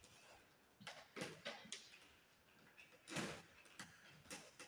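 Short scrapes and knocks of insulated wires being pressed and pulled along plastic conduit by gloved hands, about half a dozen spread over a few seconds, the loudest about three seconds in.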